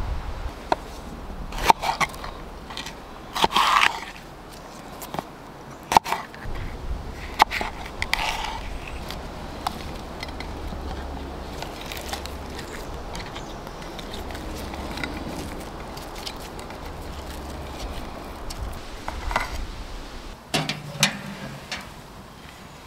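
Hands handling raw spice-rubbed chicken on sliced onion in a tray: scattered light taps and clicks against the tray, with a few louder short handling noises.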